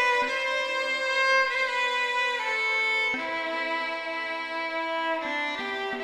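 Background music of a violin playing long bowed notes, the pitch changing every second or two.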